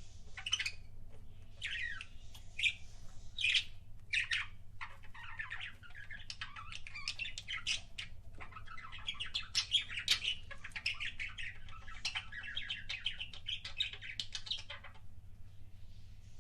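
Pet budgerigars chirping and chattering, with sharp squawk-like calls in the first few seconds and a stretch of fast warbling chatter in the second half that stops shortly before the end.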